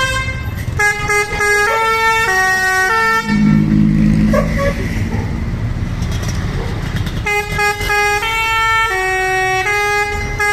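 Bus basuri telolet horn playing a tune of held notes that step from pitch to pitch. About three seconds in the tune breaks off for a few seconds of low droning noise, and it starts again around seven seconds in.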